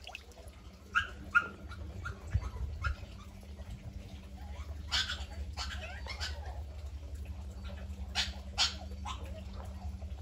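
A dog barking in short, separate barks: a pair about a second in, a louder pair around five to six seconds, and another pair near the end, over a low steady rumble.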